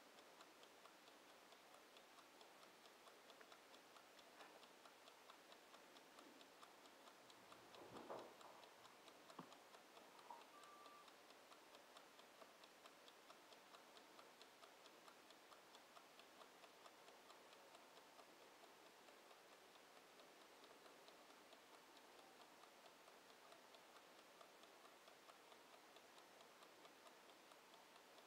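Faint, rapid, even ticking of a Bodum wind-up mechanical kitchen timer running down, with one brief muffled knock about eight seconds in.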